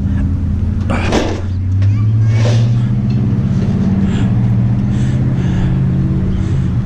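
A motor vehicle's engine running steadily, its pitch stepping up about two seconds in as it speeds up, with a brief dip near the middle.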